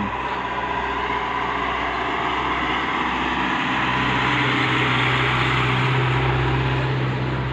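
A small cargo truck's engine running as it drives past on the road below, its steady hum growing louder from about halfway through.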